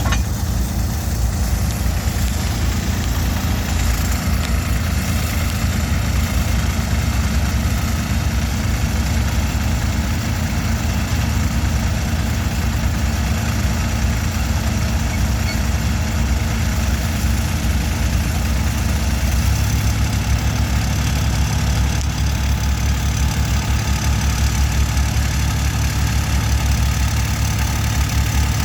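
2016 Terramite T7 compact loader/backhoe engine running steadily, its note changing about two-thirds of the way through.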